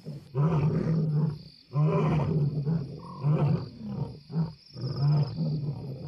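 Male African lion roaring: a long deep opening call followed by a run of shorter grunting calls about every half second, a territorial roar proclaiming that he holds this ground.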